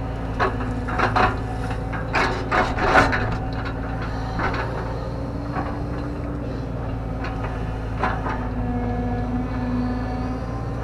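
JCB JS130 tracked excavator heard from inside its cab, engine running steadily while the bucket digs a trench. A cluster of sharp knocks and scrapes comes from about half a second to three seconds in, with single knocks later on.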